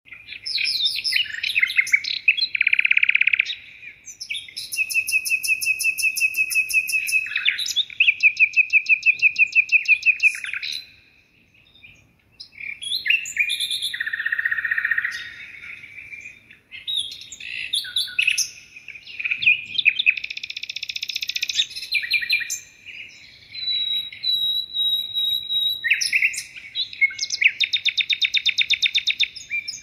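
A songbird singing on and on in chirps and long trills of rapidly repeated notes, with a brief pause a little before the middle.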